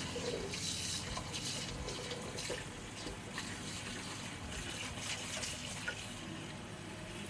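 Tap water running into a sink, a steady splashing hiss with a few light clicks.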